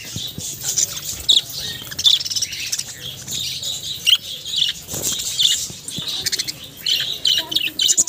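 A flock of budgerigars chattering in a cage: many short, high chirps and warbles overlapping without a break.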